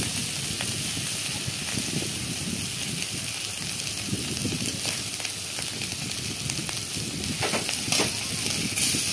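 Small shrimp frying in oil in a steel kadai with a steady sizzle, while a metal spatula scrapes the pan as they are stirred, with a few louder scrapes near the end.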